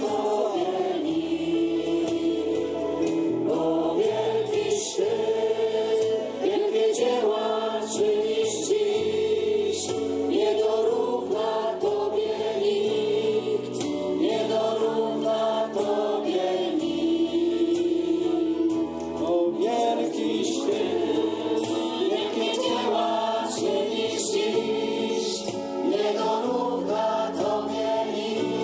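A crowd of worshippers singing a hymn of praise together, with a steady beat of light percussion hits about once a second.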